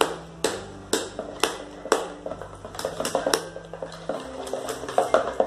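A spoon knocking and scraping against the sides of a plastic bowl as a thick slime mixture is stirred, about two knocks a second.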